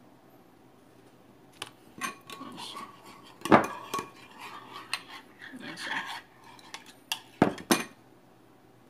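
Metal spoon stirring a marinade in a glass mixing bowl, scraping and clinking against the glass. The sharpest clink comes about three and a half seconds in, and two more follow close together near the end.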